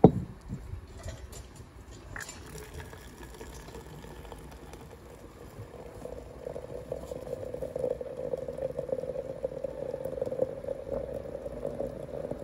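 Hot water running from a samovar's tap into a glass teapot of loose tea leaves, the filling sound growing stronger from about six seconds in. A sharp knock comes at the very start.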